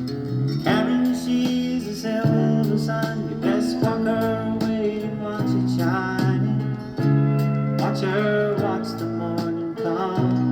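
A guitar-led song playing from a record on a 1964 Odeon CPS-153 valve console record player.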